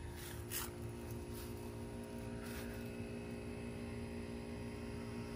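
A machine running at a steady pitch, a constant droning hum, with a few brief soft rustles in the first seconds.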